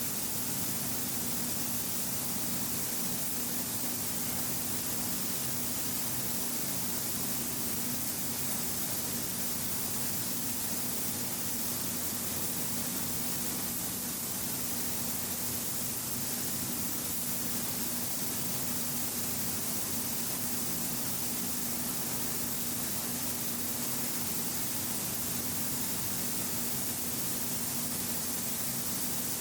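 Steady hiss of air in a paint-spraying booth, with a low steady hum underneath and no change in level throughout.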